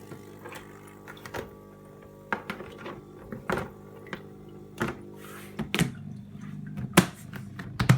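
Small electric air pump humming steadily, with a string of sharp plastic clicks and knocks from the fogger's plastic tub and its lid being handled, the loudest about seven seconds in.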